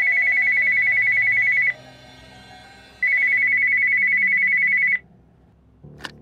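Corded desk telephone ringing twice, each ring a high electronic trill about two seconds long. Near the end comes a short clunk as the handset is picked up.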